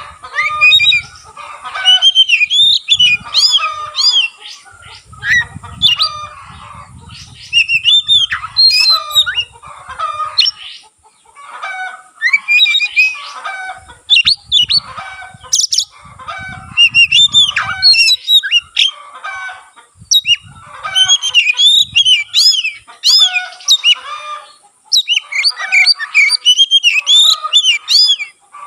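Oriental magpie-robin (kacer) singing hard in loud bursts of fast, varied whistles and chattering notes, phrase after phrase with short pauses between. Soft low thumps come in under the song in places.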